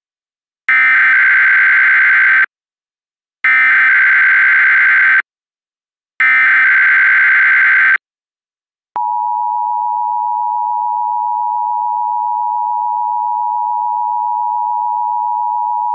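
Three bursts of Emergency Alert System SAME header data, a harsh digital warble of about two seconds each with short gaps between them. About a second after the third burst, the steady two-tone EAS attention signal (853 and 960 Hz) starts and holds.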